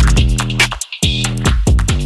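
Background electronic music with a steady beat and sustained bass notes, which drops out briefly just under a second in and then resumes.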